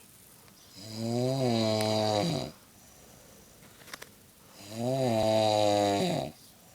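An elderly woman snoring loudly in her sleep: two long, pitched snores about four seconds apart.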